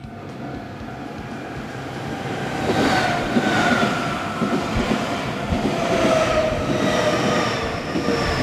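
Nankai electric train passing close by a level crossing: its wheels clatter over the rails while a whine slides slowly down in pitch. The noise builds over the first few seconds and stays loud.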